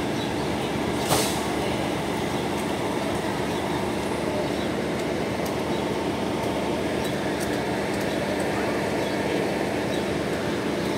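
Fire department ladder truck's engine idling, a steady even rumble with a constant low hum; a single sharp click about a second in.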